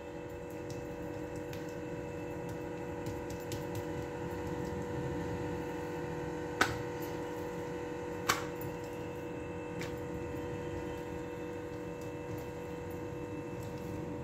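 Soft squishing of oiled dough being spread and stretched thin by hand on a countertop, over a steady background hum. Two sharp clicks stand out about halfway through, a second and a half apart.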